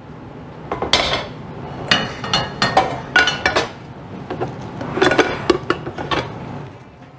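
Kitchen dishes, bowls and utensils clinking and knocking as they are moved and set down, in several clusters of sharp clinks with a short ring.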